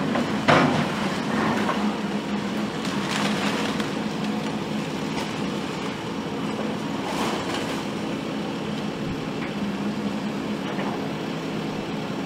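Heavy demolition machinery: an engine running steadily, with brief noisy bursts about half a second in, around three seconds and again around seven seconds.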